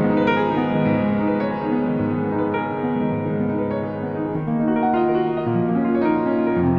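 Background piano music, gentle and melodic, with notes changing every second or so.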